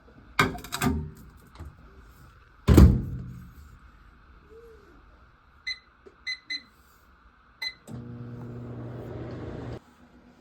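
A few knocks, then a loud thud, then four short electronic beeps. After the beeps a steady hum runs for about two seconds and cuts off suddenly.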